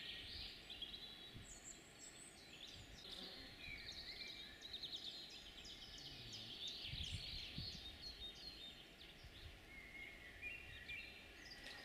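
Several songbirds singing at once, their overlapping chirps and trills continuing throughout, over a faint low rumble.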